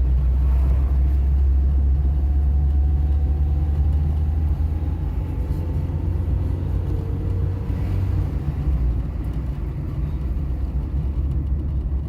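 Car engine and road noise heard from inside the moving car's cabin: a steady low rumble with a faint whine rising slowly in pitch as the car picks up speed, the rumble easing a little near the end.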